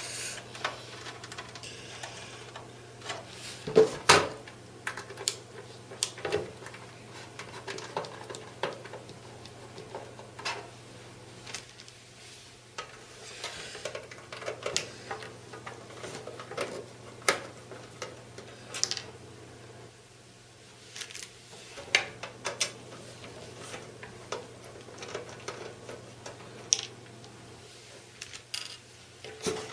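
A screwdriver backing out the small screws of a CCTV DVR's metal cover: irregular metallic clicks, scrapes and taps, with a sharper knock about four seconds in.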